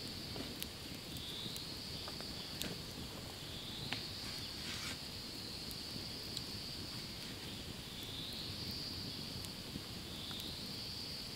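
Forest insects chirring in a steady high-pitched drone that dips briefly in pitch and rises back every couple of seconds, over a low outdoor rumble, with a few faint clicks.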